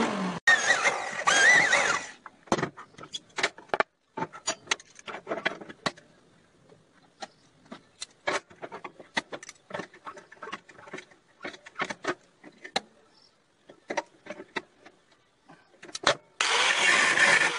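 An angle grinder cutting mild-steel plate for the first two seconds, then a long stretch of scattered light clinks and taps as cut steel hinge pieces are handled and set on a steel table. A loud steady machine noise starts again about a second before the end.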